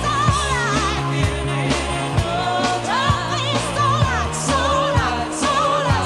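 Pop song with a singer's voice held in wide vibrato over bass and a steady drum beat of about two strikes a second.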